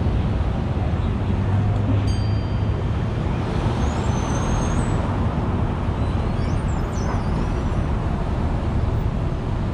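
Streetcar running: a steady noise with a low hum that swells briefly about two seconds in, and faint high squeals a few seconds later.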